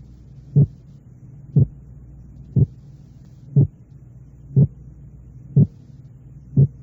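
Simulated split heart sound for auscultation training: two short sounds, each three hundredths of a second long and 4 hundredths of a second apart, heard together as a slightly doubled thud. The pair repeats evenly about once a second, seven times, over a faint steady low hum.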